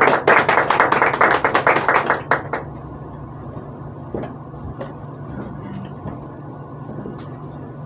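Small audience applauding, a dense patter of hand claps that dies away about two and a half seconds in. Then quiet room tone with a low hum and a few faint clicks.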